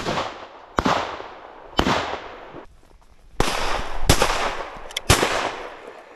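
A quick volley of double-barrelled shotgun shots: about six blasts in six seconds, roughly a second apart, each trailing off in a short echo.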